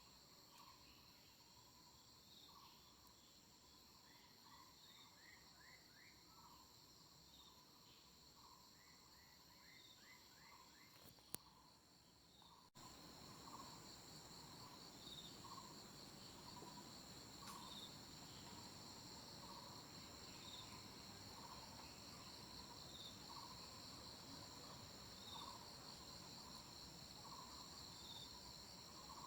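Faint, steady high-pitched trilling of insects, with a short call repeating every second or two and a few quick runs of chirps in the first half. Partway through, the background steps up a little louder.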